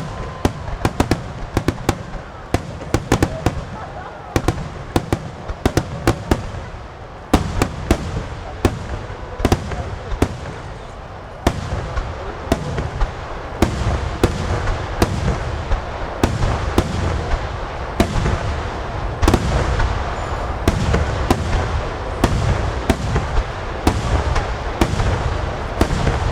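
Aerial fireworks shells bursting in rapid succession: dozens of sharp bangs, several a second at first and then about one a second, over a continuous low rumble of echoes.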